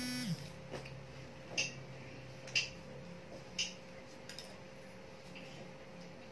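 A child's closed-mouth 'mmm' of enjoyment ending just as it starts, then quiet chewing of a soft snack cake with a few short sharp clicks about a second apart.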